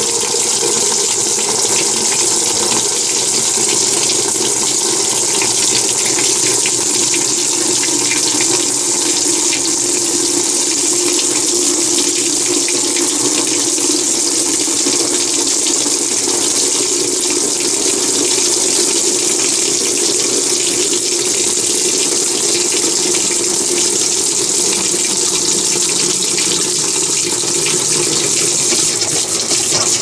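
Consul CWB09AB top-load washing machine filling its empty basket: water sprays in from a jet on each side of the basket, a steady rushing splash of water into the tub.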